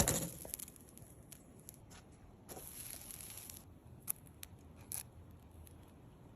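A brief sharp sound right at the start, then faint scattered clicks and a soft rustle, like light handling of objects.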